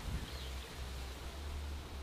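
Steady low road-and-engine drone inside a moving Toyota Tacoma's cabin, under a soft rushing noise, with one faint bird chirp about a third of a second in.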